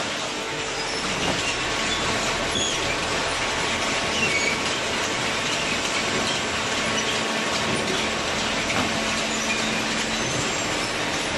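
Horizontal hydraulic paper baler running: a steady mechanical din with a few brief high squeals.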